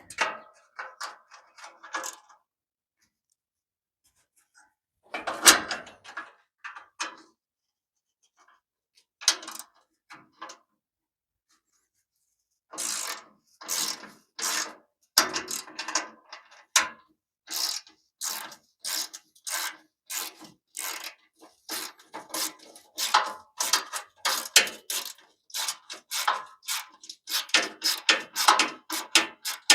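A ratchet wrench clicking in repeated strokes as a bolt is worked off, the clicks coming thicker and faster towards the end, after a few scattered metal knocks and handling sounds with quiet gaps between them.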